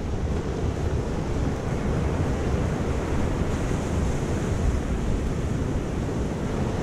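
Sea waves washing onto the beach in a steady rush, with wind buffeting the microphone and adding a low rumble.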